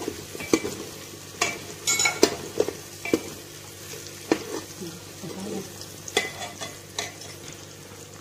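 Perforated steel spoon stirring potato chunks in hot oil in an aluminium pressure cooker, with sharp irregular clinks and scrapes of metal against the pot, over a faint sizzle of frying. The clinks stop about seven seconds in.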